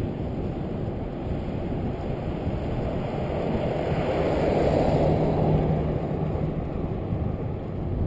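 Wind buffeting the microphone of a camera on a moving bicycle, a steady low rumble with road noise, swelling for a couple of seconds midway.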